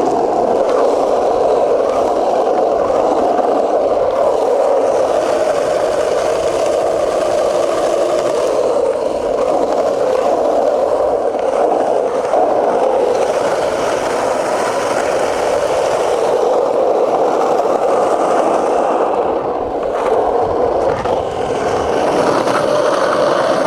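Skateboard wheels rolling continuously over concrete: a steady rumble with scraping, dipping briefly near the end.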